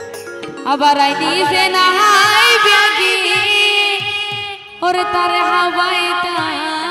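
A woman singing a sorrowful Chittagonian regional folk song into a microphone, with instrumental backing and low drum strokes. The sung line breaks off briefly a little past halfway, then comes back in.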